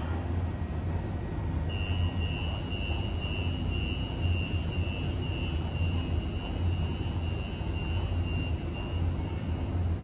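Siemens S200 light rail vehicle standing at the platform, its onboard equipment humming steadily, with a steady high whine that starts about two seconds in and stops near the end.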